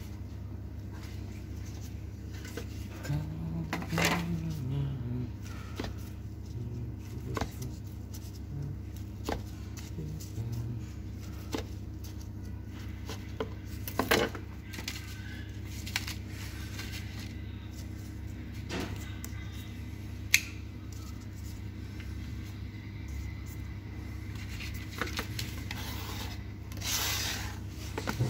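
Dishes and utensils being handled in a kitchen: scattered clinks and knocks, the sharpest about twenty seconds in, over a steady low hum.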